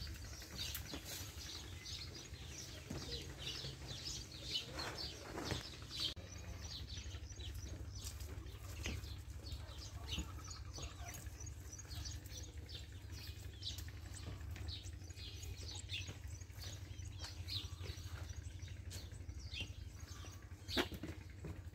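Small birds chirping repeatedly in quick short notes, over a steady low rumble, with one louder, briefly falling call near the end.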